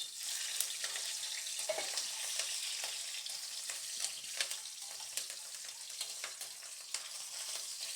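Whole spices and green chillies sizzling in hot ghee and groundnut oil in a kadai, a steady hiss with scattered crackles and pops.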